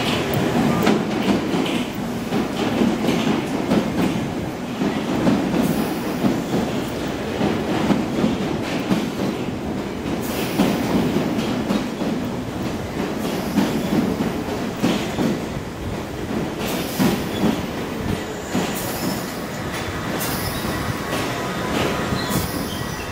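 London Underground Piccadilly line 1973 Stock train running into the platform and slowing: a steady rumble of wheels on rail, with sharp clicks over the rail joints in the second half.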